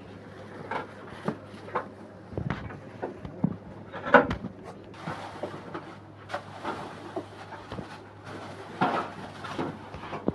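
Irregular knocks, clatter and rustling from objects being handled, over a steady low hum.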